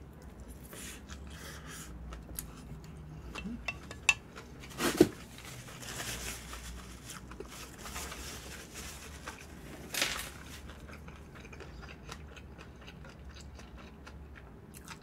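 A person eating bibimbap close to the microphone: chewing, with small clicks and clinks of cutlery on a bowl, and a few louder clatters about four, five and ten seconds in.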